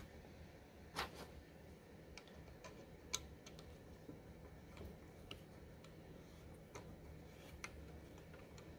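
Faint, scattered metallic clicks and ticks as a hex key is turned in a screw driven through a wooden barstool leg, the two sharpest about a second and three seconds in.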